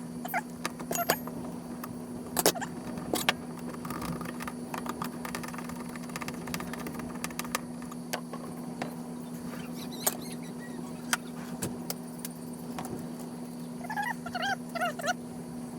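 Scattered light clicks and knocks from speargun parts being handled, over a steady low hum. A few short chirps come near the end.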